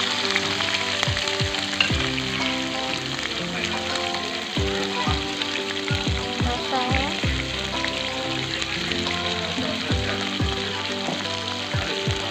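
Food sizzling steadily in hot oil in a pan, with occasional stirring, over background music with held notes and a steady beat.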